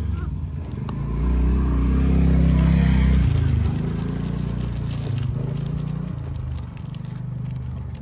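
A motor vehicle engine running nearby: a steady low hum that swells louder from about one to three and a half seconds in, then settles back to a quieter run.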